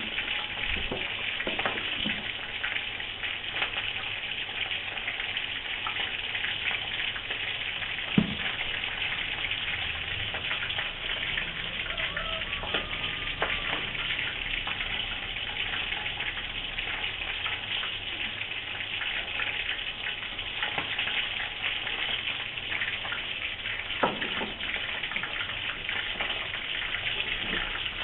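Chicken pieces frying in hot oil in a wok, a steady sizzle, with two sharp knocks, one about eight seconds in and one near the end.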